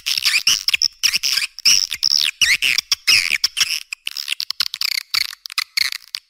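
A flock of swiftlets calling in a dense, rapid, high-pitched twittering chatter: a swiftlet lure recording played to call the birds home to a swiftlet house.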